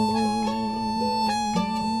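Instrumental passage of a live folk song: plucked guitar with long held harmonica notes over it.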